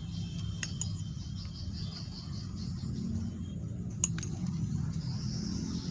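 Light metallic clicks and clinks from the brush cutter's throttle handle and its bolt being handled: two close together under a second in and a sharper one about four seconds in.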